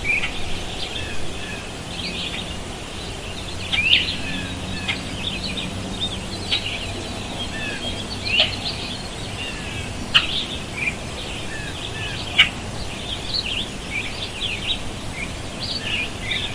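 Forest ambience: several birds chirping and calling, with short high chirps coming thickly throughout and a few louder calls standing out, over a steady low background rumble.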